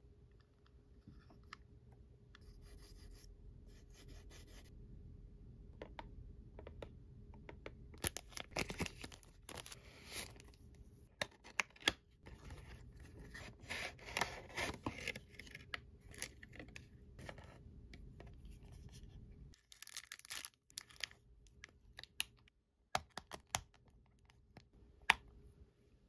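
Hands opening a cardboard toy box with a clear plastic window: tearing, scraping and crinkling of cardboard and plastic packaging in close detail. Toward the end come separate sharp clicks of small plastic parts as the toy locker is handled and opened.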